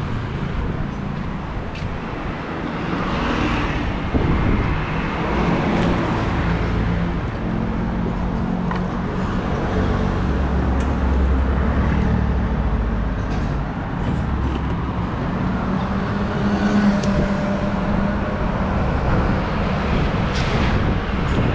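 Road traffic noise: motor vehicles running and passing, a steady low engine hum with a few faint clicks.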